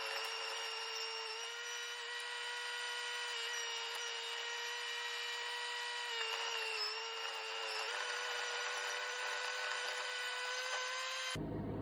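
A steady high mechanical whine with a stack of overtones, like a power tool or a hydraulic drive under load, dipping briefly in pitch about six to seven seconds in.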